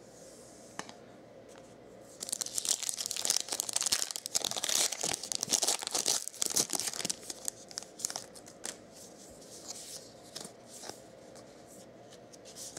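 Plastic baseball card pack wrapper being torn open and crinkled, loud crackling starting about two seconds in and lasting some five seconds, then fainter scattered crinkles and rustles.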